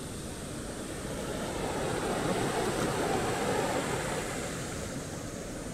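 River water rushing over rocks through shallow rapids: a steady rush that swells a little in the middle.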